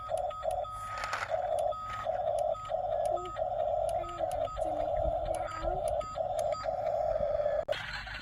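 An electronic alarm tone sounding steadily, broken by brief gaps in which a higher short beep sounds, over a low rumble; it cuts off suddenly shortly before the end.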